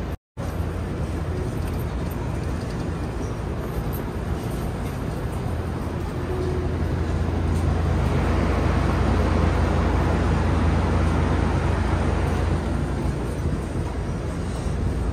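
Running noise inside a Toei 6500-series subway car: a steady low rumble of the train moving along the track. It grows louder about eight seconds in and eases off again near the end.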